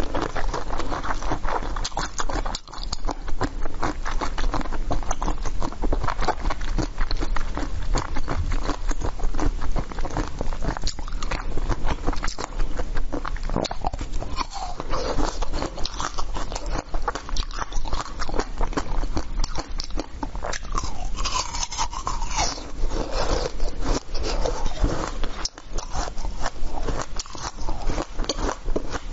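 Biting and chewing of frozen basil-seed ice: a dense run of crunches and cracks as the ice is bitten and chewed.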